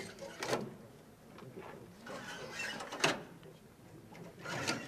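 Sharp knocks and light rattling from metal-framed rocket-protection net panels as they are handled and fitted onto an armoured vehicle. There are three louder knocks: about half a second in, about three seconds in, and near the end.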